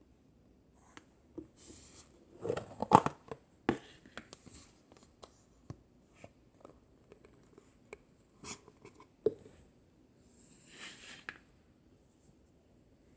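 A cheese-mousse slime being handled by hand, with irregular crackles, small pops and squishes. The loudest cluster comes about three seconds in.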